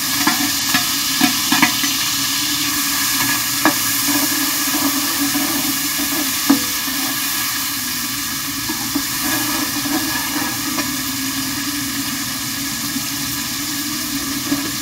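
Sliced carrots and spring onions sizzling in hot oil in a metal wok, stirred with a slotted metal spatula that clicks and scrapes against the pan now and then over the steady hiss.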